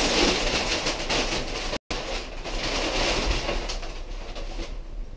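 Crumpled brown kraft packing paper rustling and crackling as it is pulled by hand out of a cardboard box. It cuts out for an instant a little under two seconds in, then goes on and fades away near the end.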